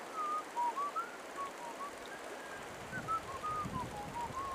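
A person whistling a tune, a quick string of short clear notes that wander up and down in pitch, over the steady rush of river water.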